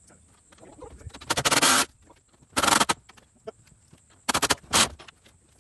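Four short bursts of scraping from a hand tool working the wooden door frame of an outhouse under assembly. The first burst is the longest, at about half a second.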